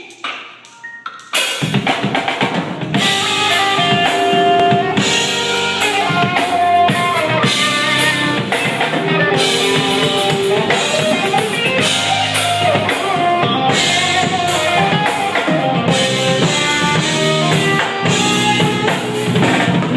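Loud music with a drum kit and held pitched notes over it, kicking in suddenly about a second and a half in after a few light taps.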